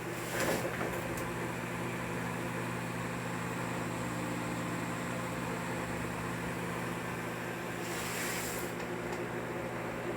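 Brastemp microwave oven running with a steady mains-frequency hum from its transformer and fan, on a test heat of a cup of water with a newly fitted donor magnetron that works. Short bursts of hiss come about half a second in and again around eight seconds.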